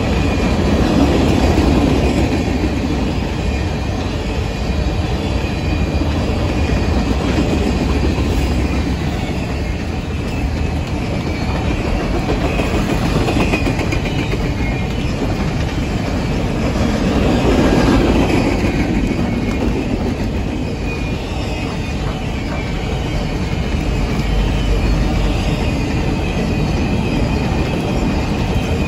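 A freight train's cars rolling past close by, with a steady rumble of steel wheels on rail and rhythmic clacking over rail joints. Light wheel squeal rises and fades. The cars change from empty open-top coal cars to double-stack intermodal container cars, and the sound swells twice, about a second in and around the middle.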